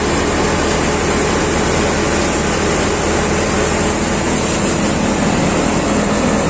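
Prachi paddy thresher running steadily under load: a constant loud mechanical drone with a low hum, its speed unchanging while it threshes paddy.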